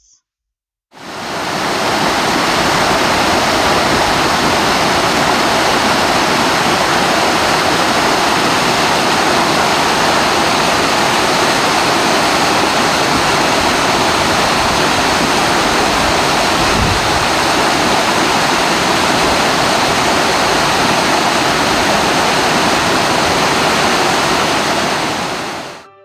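Loud, steady rush of falling water, as from a waterfall or cascading mountain stream. It fades in about a second in and fades out just before the end.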